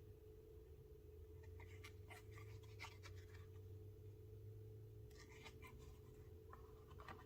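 Faint scratching and light clicks of hand work on a leather slip, coming in short scattered bunches over a low steady hum.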